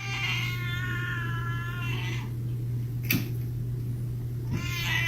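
A cat giving two long, drawn-out meows: one right at the start lasting about two seconds, the second starting near the end. A sharp click comes about three seconds in, over a steady low hum.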